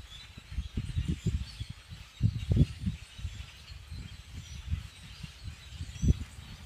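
Irregular low gusts of wind buffeting the microphone, loudest about two and a half seconds in and again near the end. Beneath them is the faint, continuous chatter of a large foraging flock of common grackles.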